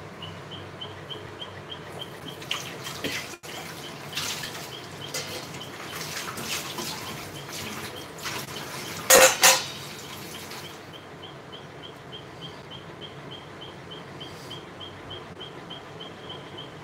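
A steel spatula stirring and scraping in a non-stick pan of spiced water, with scattered clinks and two loud clanks close together about nine seconds in. A faint, even, high-pitched ticking repeats about four times a second throughout.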